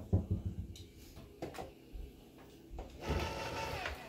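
Light clicks and knocks of cans being handled, then about three seconds in a handheld electric can opener starts running on a can lid with a steady motor whine.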